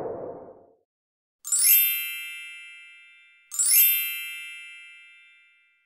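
Two identical bright chime sound effects, each starting with a quick upward sparkle and ringing out over about two seconds, the second about two seconds after the first. A rushing noise fades out just before the first chime.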